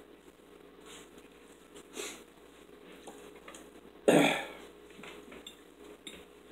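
A single short burp from one of the diners about four seconds in, against quiet room sound with a few soft small noises.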